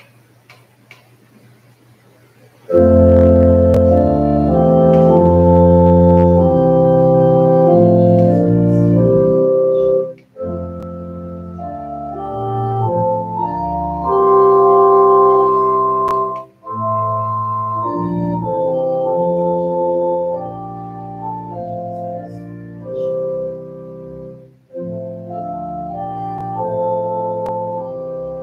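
Organ starts playing about two and a half seconds in: slow, held chords moving in phrases, with short breaks between the phrases.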